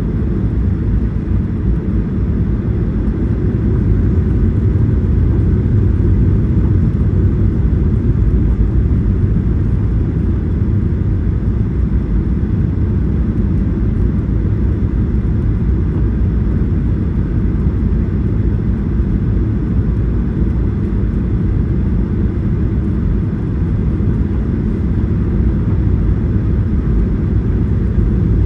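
Steady low rumble of an airliner in flight on approach: engine and airflow noise, unchanging throughout.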